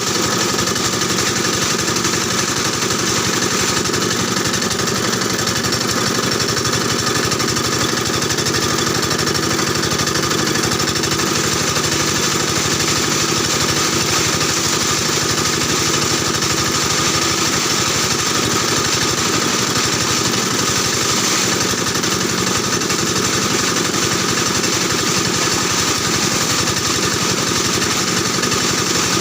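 Plastic-washing machine running steadily, with a loud mechanical hum and a fast, even rattle that does not change.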